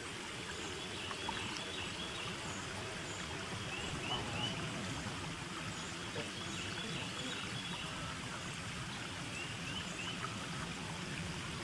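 Steady rush of running water, with short high chirps, in pairs and threes, from a small bird several times.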